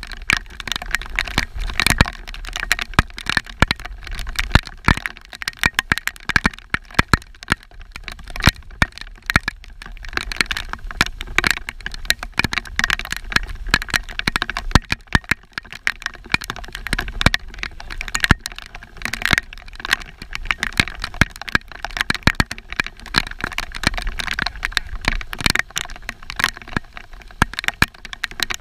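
Rain falling, a dense and irregular patter of sharp drop clicks.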